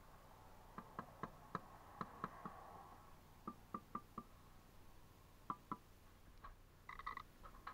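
Steel brick trowel tapping bricks down into mortar: light, sharp taps with a faint metallic ring, coming in quick clusters of two to four, with a denser clatter near the end.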